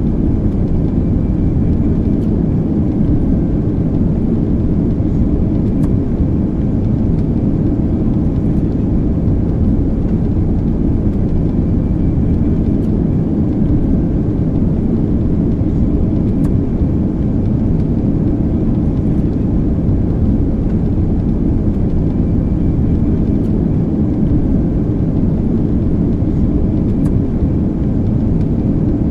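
Airplane in flight heard from inside the cabin: a steady, loud, low rumble of engines and airflow that holds even throughout.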